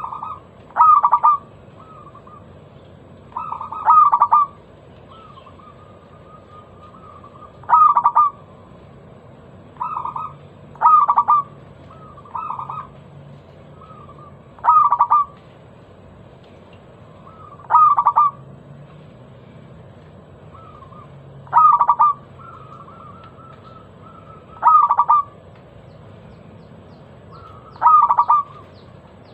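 Zebra dove (perkutut) cooing in a loud, clear voice, repeating its phrase nine times at about three-and-a-half-second intervals, with softer coos between the phrases.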